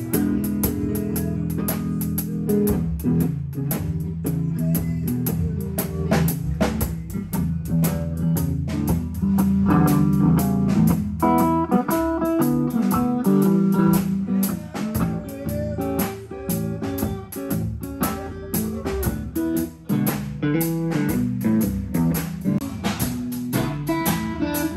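Live band music: guitar played over a drum kit keeping a steady beat.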